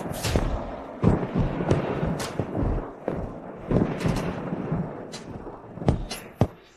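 Dramatic score of heavy drum hits and booms, about one a second, over a low rumble, cutting off abruptly just before the end.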